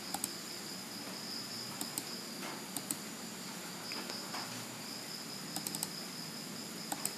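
Computer mouse clicks, mostly quick double clicks, several times over a steady background hiss with a faint steady high-pitched tone.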